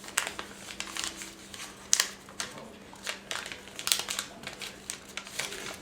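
Sheet of origami paper crinkling and rustling as it is folded and creased by hand, with irregular sharp crackles.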